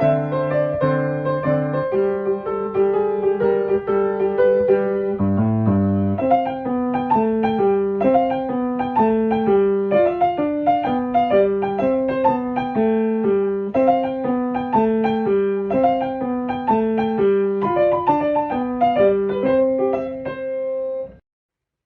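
Piano music, a steady run of single notes over lower sustained notes, stopping abruptly about a second before the end.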